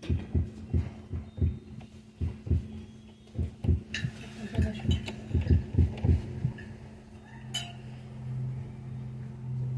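Amplified heartbeat: low thumps coming about two to three a second over a steady electrical hum. The beats stop about seven seconds in, leaving a low hum and a single click.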